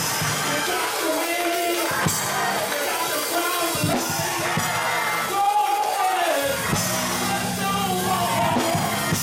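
Gospel choir singing with a drum kit and band accompanying.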